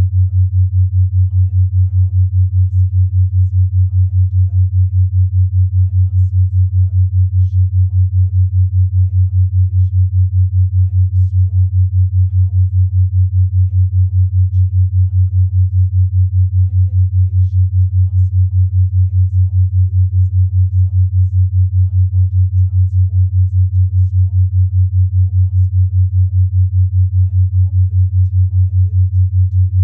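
Binaural-beat tone: a loud, steady low sine tone near 100 Hz that pulses about five times a second, the 5 Hz beat. A very faint voice murmurs underneath, the subliminal affirmations mixed in below hearing.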